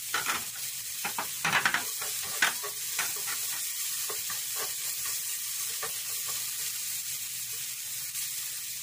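Oil sizzling steadily in a frying pan as chopped aromatics sauté, with a plastic spatula scraping and tapping against the pan in quick strokes, busiest in the first three seconds.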